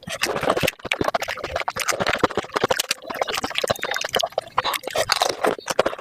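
Pani puri being eaten and sped up about five times: crisp puri shells crunching and spiced water slurped, running together into a dense, unbroken stream of clicks and mouth sounds.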